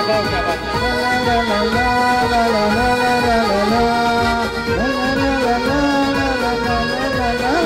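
Background music: a melody of long held notes that slide between pitches, over a steady beat.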